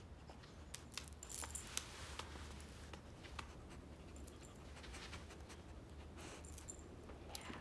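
Faint metallic jingles and light clicks from a small dog moving about as it is petted, over a low steady hum.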